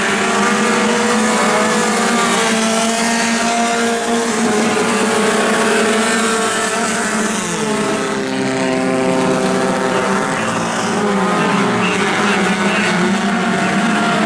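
A pack of four-cylinder amateur stock cars running laps on a dirt oval, several engines revving at once. The pitch of a single car drops sharply twice, about seven and a half and eleven and a half seconds in.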